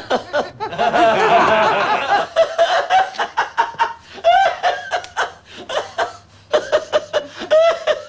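Two men laughing heartily: a loud burst of laughter about a second in, then a long run of short laughing pulses, a few a second.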